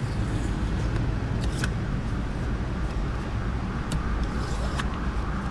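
A steady low rumble runs throughout, with a few light clicks as a hard card works tint film against the inside of the windshield glass. A steady higher hum comes in a little past halfway.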